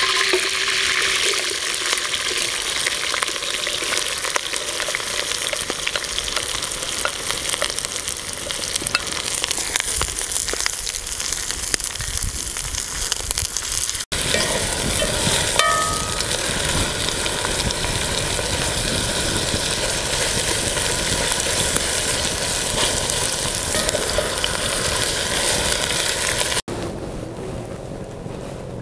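Sliced onions frying in hot oil, a steady loud sizzle as they drop into the pot and then as they are stirred with a wooden spoon. Near the end the sizzle cuts off.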